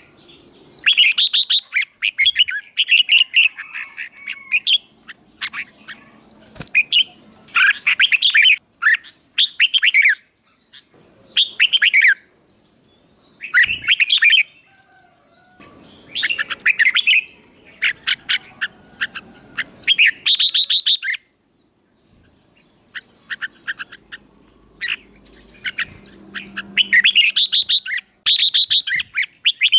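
Songbird singing in rapid chattering phrases of about one to two seconds, broken by short pauses and repeated throughout.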